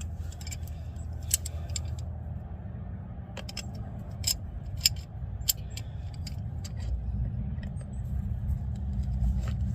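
Hand tools clinking against a seized brake bolt as it is worked loose: a few sharp metallic clicks scattered through, over a steady low rumble.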